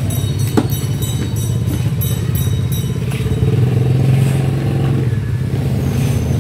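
A steady, low engine-like drone with a few light clicks and clatter of handling, including a sharp click about half a second in.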